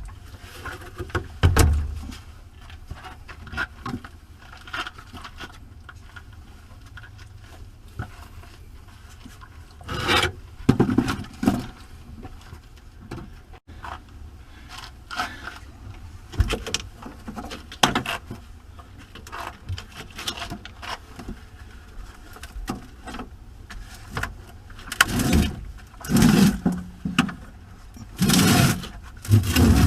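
Scraping, knocking and clunking of heavy batteries and cables being worked out of a motorhome's battery compartment, in irregular bouts with the loudest near the end.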